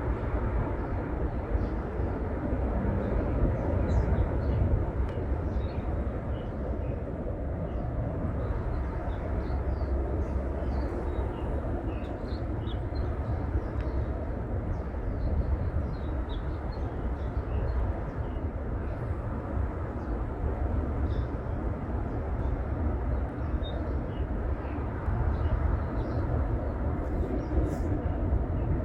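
Many small birds chirping in short high calls scattered throughout, over a steady low rumble that is the loudest sound.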